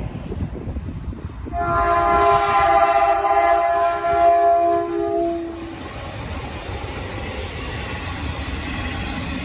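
Horn of an Aurizon electric locomotive leading an empty coal train: a chord of several notes sounding about a second and a half in and held for about four seconds. Then the rolling rumble of the empty coal hopper wagons passing.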